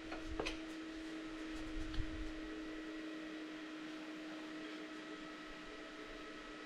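Quiet room tone with a steady low hum and faint hiss, with a couple of faint clicks about half a second in and a small tick about two seconds in.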